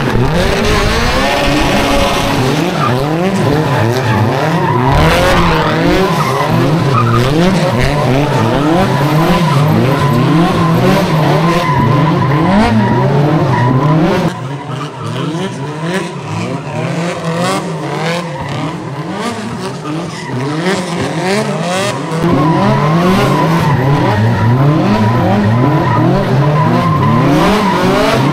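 Cars drifting: engines revving up and down over and over with tires squealing. It eases off somewhat about halfway through and picks up again about three quarters in.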